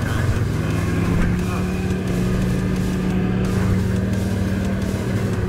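2019 Suzuki KingQuad 750 ATV's single-cylinder engine running steadily while riding a dirt trail, heard from the rider's seat.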